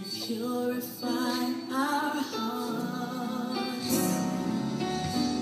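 Gospel song playing: sustained sung vocal lines over instrumental accompaniment.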